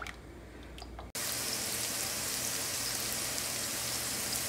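Tortilla strips frying in hot oil in a pan: a steady sizzle with fine crackling. It starts abruptly about a second in, after a moment of quiet low hum.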